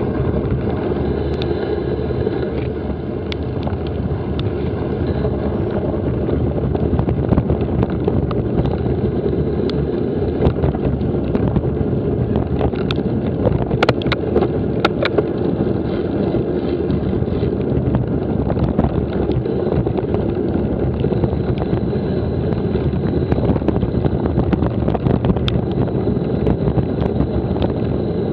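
Wind buffeting an action camera's microphone during a bicycle ride, a steady rumble with scattered sharp clicks and rattles, a cluster of them about halfway through.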